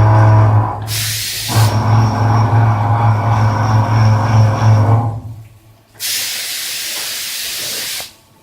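CNC machine humming steadily with a deep tone, broken about a second in by a short burst of hiss; the hum dies away about five seconds in, then a steady hiss runs for about two seconds and cuts off suddenly.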